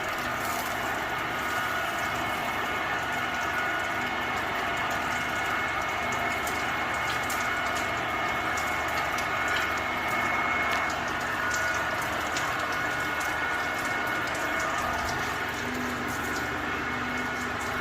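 Metal lathe running steadily with its cutting tool facing the end of a steel 9-inch Ford differential housing tube to square it up: an even, humming whine with scattered light ticks from the cut.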